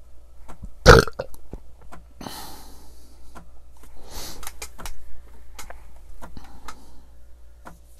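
A man burps once, loudly, about a second in. A short breathy rush and scattered small knocks and clicks follow.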